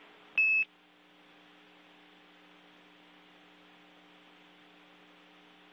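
A single short high-pitched radio beep about half a second in, right after Mission Control's last words, the kind of tone that marks the end of a space-to-ground transmission. After it comes a faint steady hum and hiss on the open air-to-ground radio link.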